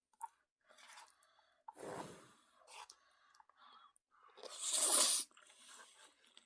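A person eating jjapaghetti noodles: soft chewing and mouth sounds, with a louder hissing sound lasting under a second about five seconds in.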